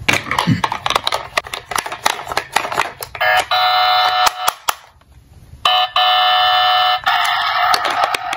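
Hard plastic toy cars clicking and clattering as they are handled. About three seconds in, a battery-powered toy police car starts its electronic siren: a steady, shrill electronic tone. It cuts out briefly, comes back, and then changes pitch near the end.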